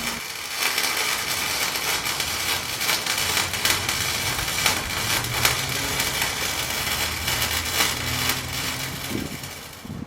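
Eastwood 135 MIG welder's arc crackling steadily while a weld bead is laid, dying away just before the end.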